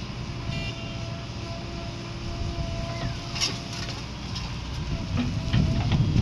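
Diesel engine of earth-moving machinery running steadily, with a few short sharp knocks about halfway through and near the end.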